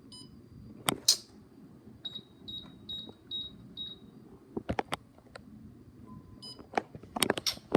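ADT Pulse alarm system keypad beeping: a run of five short, high, evenly spaced beeps about two seconds in, with brief chirps near the start and end and several sharp clicks and taps in between.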